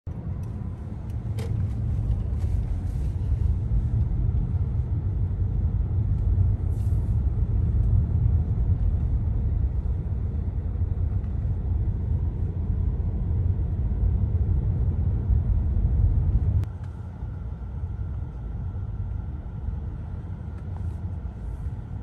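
Mercedes-Benz car driving, heard from inside the cabin: a steady low rumble of road and engine noise. The rumble drops abruptly and carries on quieter a few seconds before the end.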